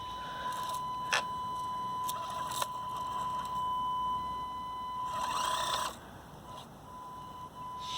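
Axial SCX24 Deadbolt micro crawler's small brushed motor and gearbox running on the low setting, with a steady high whine and a louder stretch of whirring and scraping about five seconds in. A few sharp clicks from the tyres and chassis on the stone.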